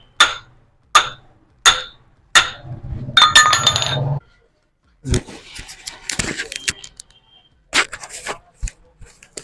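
Metal tools and parts clinking and tapping while a scooter's front shock absorber is taken apart: four sharp taps about 0.7 s apart, then about a second of steady mechanical whirring with metallic ringing about three seconds in, followed by scattered clanks and rattles.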